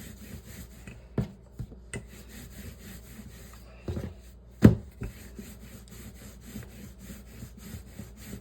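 Biscuit dough being pressed and flattened by hand: soft rubbing with several sharp knocks on the work surface, the loudest a little past halfway.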